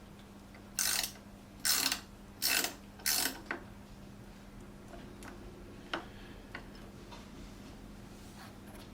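A ratchet mechanism worked in four short ratcheting strokes, roughly one every 0.8 s, followed by a few light clicks.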